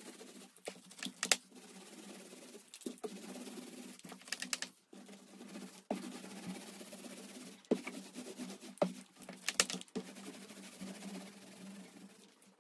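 Small paint roller being rolled back and forth over plywood baseboards, laying on brown paint: a soft, uneven rolling rasp broken by several clusters of sharp clicks and taps.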